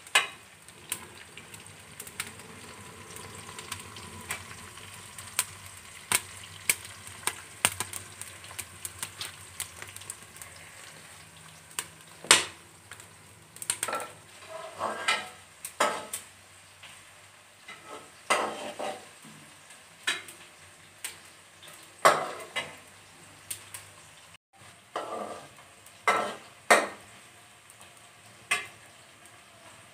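Chopped onions frying in oil in an aluminium karahi, sizzling with scattered sharp ticks as they brown. From about halfway, a metal slotted spoon scrapes and clinks against the pan in repeated bursts of stirring.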